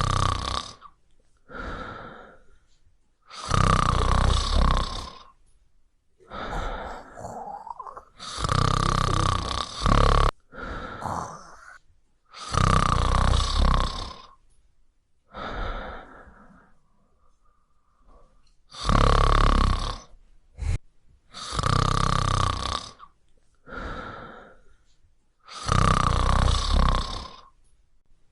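A woman snoring loudly and regularly. A long, loud snore comes every four to five seconds, with a shorter, softer one between each pair.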